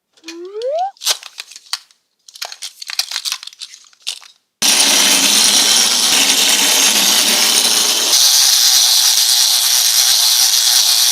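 A power tool starts suddenly about halfway through and runs loud and steady, its sound thinning out a few seconds later. Before it come a short rising squeak and a few brief scraping sounds.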